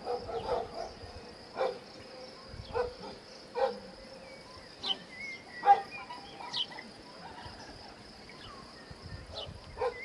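Insects trilling steadily at a high pitch, with short sharp sounds every second or so, the loudest a little before six seconds in.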